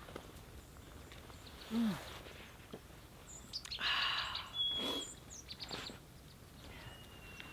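Small wild birds chirping, with a few short, clear whistled notes. A brief low falling sound about two seconds in and a few seconds of rustling noise are as loud as the birds.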